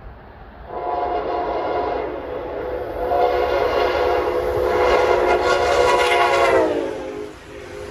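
Amtrak train's Nathan K5LA five-chime air horn sounding a long, loud blast of several steady notes together, over the noise of the passing train. Near the end the chord slides down in pitch as the train goes by, then the horn cuts off.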